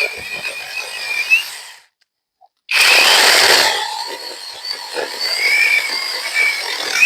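Battery-powered electric chainsaw running with a steady high whine as it cuts through a small log under its own weight, with no pressure on it. It stops about two seconds in, starts again about a second later, and runs on until near the end.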